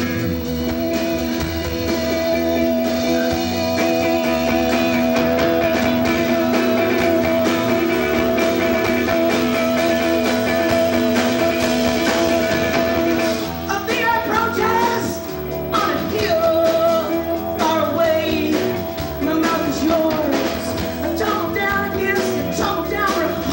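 Live rock band playing loud: distorted electric guitar, bass and drums. Held, droning chords fill the first half, then the music breaks into a choppier, shifting part about halfway through.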